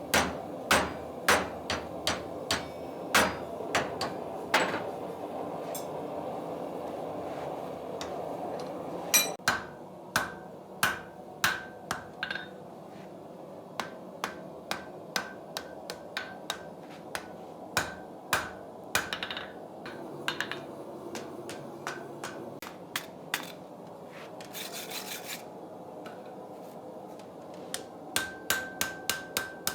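Blacksmith's hammer striking hot iron on an anvil while forging log dogs, in runs of blows about two a second with short pauses between. Some blows leave a brief ringing tone, and there is a short hiss a little after the middle.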